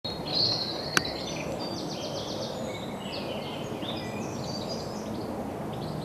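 Wild songbirds singing in varied high phrases and quick trills over steady background noise, with one sharp click about a second in.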